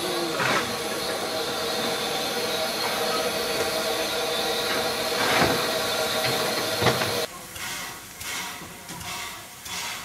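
Steam locomotive hissing steadily, with a few sharp knocks. The hiss cuts off abruptly about seven seconds in, leaving quieter station background.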